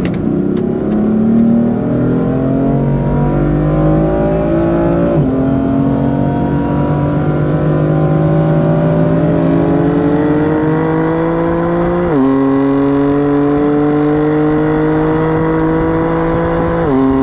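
BMW M4 (F82) twin-turbo straight-six on its stock exhaust, accelerating hard through the gears: the engine note climbs steadily and drops at upshifts about 5 and 12 seconds in and again at the very end. It is heard from inside the cabin, where BMW's Active Sound Design plays a synthetic exhaust sound through the car's speakers.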